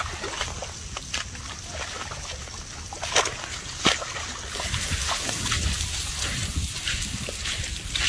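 Wet mud squelching and splashing as a baby elephant rolls in a muddy puddle: a run of short soft splats, with two louder ones about three and four seconds in.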